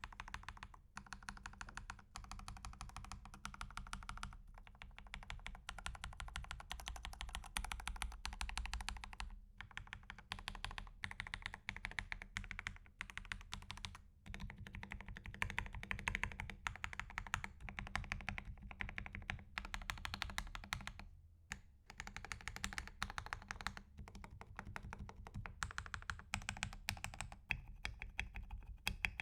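Fast, continuous typing on a custom underwater keyboard, a sound test of its keystrokes, with a few brief pauses between runs.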